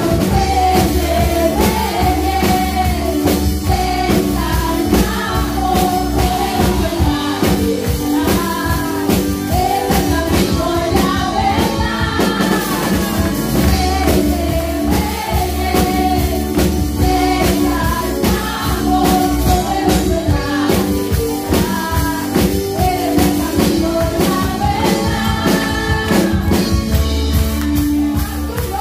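Women singing a worship song into microphones, amplified through the church sound system, over accompaniment with drums and a steady bass line.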